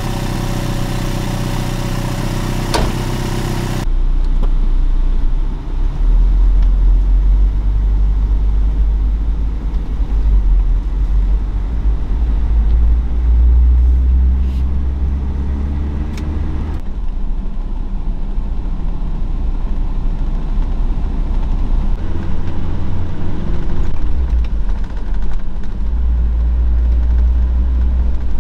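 Toyota Land Cruiser's 22R petrol engine idling, then heard from inside the cabin while driving as a loud low drone whose pitch rises as the truck accelerates and changes at each gear shift.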